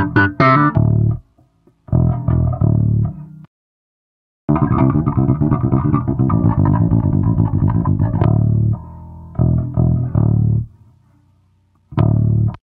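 Direct-input electric bass recording playing back: plucked bass lines in several phrases broken by short silences, the longest phrase running from about four to ten seconds in.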